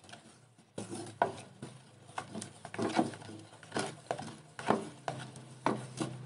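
Wooden spatula stirring and scraping a thick chocolate jam mixture in a metal saucepan, in repeated strokes about one or two a second, as the mixture heats over a low flame.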